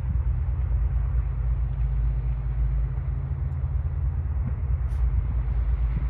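Steady low drone of a river towboat's diesel engines as it pushes a string of barges, with a brief click about five seconds in.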